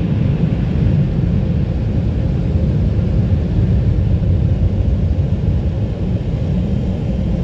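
A car's engine idling, heard from inside the cabin as a steady low rumble.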